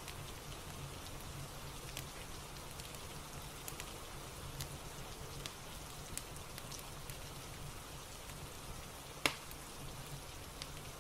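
Steady rain ambience with a fireplace crackling softly underneath: an even rain hiss with scattered light crackles, and one sharper crack about nine seconds in.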